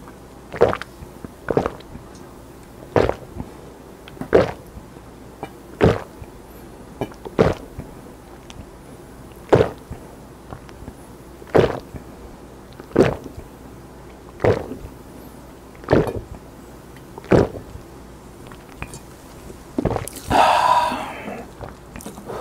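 A person gulping cola down from a plastic bottle in one long chug, about twelve loud swallows at an even pace of roughly one every second and a half. Near the end comes one longer, louder sound from the throat as the bottle is finished.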